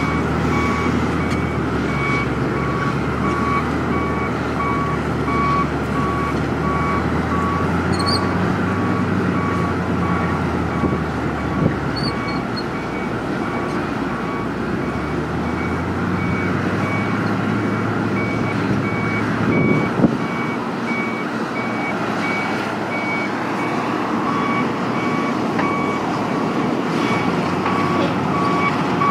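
Excavator diesel engine running steadily while its travel alarm beeps over and over, the beeping dropping out for a stretch in the middle. A single clunk sounds about two-thirds of the way through.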